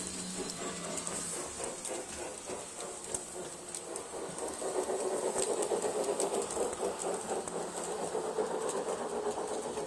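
Hartland G-scale model locomotive (the Ernest S. Marsh) and its cars running on the track, with a whirring motor and fast rattling wheels. It gets louder about halfway through as the train passes close by.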